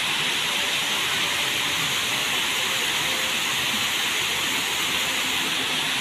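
Several waterfalls pouring into a pool, a steady, unbroken rush of falling and splashing water.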